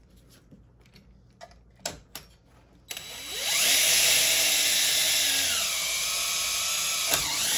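A few small handling clicks, then about three seconds in a cordless drill starts, spins up and runs steadily as it bores a hole through metal. Its pitch drops a little partway through.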